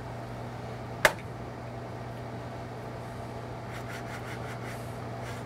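Steady low hum of the room and equipment, with one sharp click about a second in and a few faint clicks near the end as the laptop is worked by hand.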